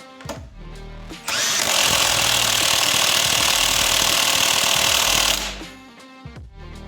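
Milwaukee Gen 3 high-torque cordless impact wrench hammering on a grade 8 bolt through an impact socket at full power, a loud rapid rattle starting about a second in and stopping about four seconds later. The bolt takes some damage under the torque. Background music plays before and after.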